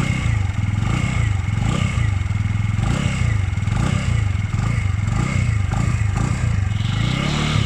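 SYM Crox 125cc scooter's single-cylinder four-stroke engine, heard close at the exhaust, revved over and over in quick throttle blips. The pitch rises and falls about once a second.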